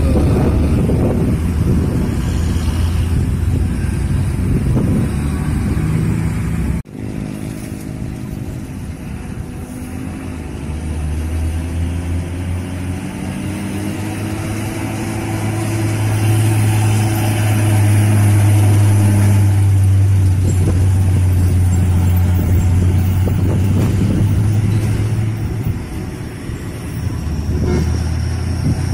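Heavy diesel trucks passing on a bend, with motorcycles going by. A Hino dump truck's engine drone grows steadily louder as it approaches, loudest about two-thirds of the way through. The sound breaks off sharply about seven seconds in and changes again near the end.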